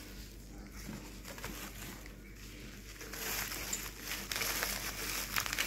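Bubble wrap crinkling and rustling as it is handled around a glass pot, fuller from about three seconds in.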